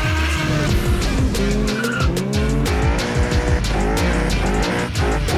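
Drag cars doing burnouts: engines revving and rear tyres spinning and squealing in smoke, mixed with music that has a heavy beat.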